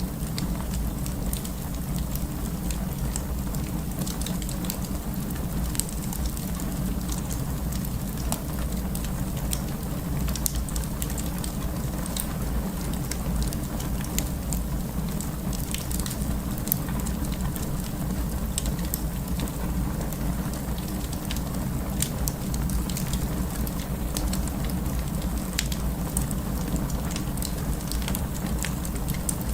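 Wood fire burning in a fireplace, crackling with many small, sharp pops scattered irregularly over a steady low rumble of flames.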